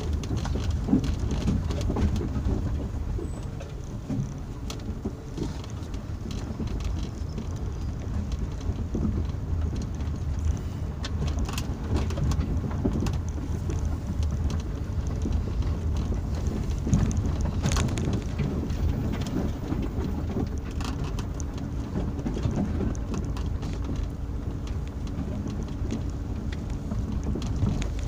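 Cabin noise of a 2001 Hyundai Santa Fe driving off-road on a rutted dirt track: a steady low rumble of engine and tyres, with scattered clicks and knocks from the body and stones under the wheels.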